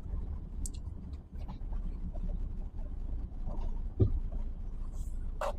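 Cab noise of a DAF truck tractor unit driving slowly: a steady low diesel engine and road rumble, with a single thump about four seconds in and a sharp click near the end.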